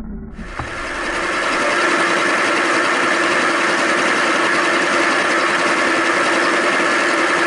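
Milling machine with flood coolant, its end mill cutting a slot through a steel plate. The sound is a steady machining whir with a constant tone in it. It swells over the first couple of seconds, then holds level.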